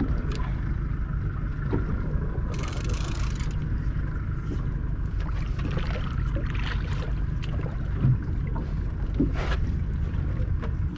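Steady low rumble of a boat's outboard motor idling, mixed with wind on the microphone, with a brief hiss about two and a half seconds in.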